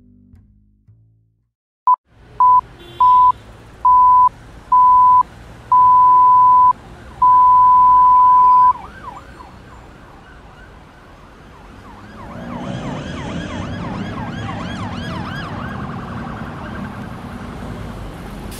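A steady high electronic beep sounds about seven times, each beep longer than the last. It then breaks into a fast-warbling, echoing siren wail that swells over a low rumble and runs on to the end.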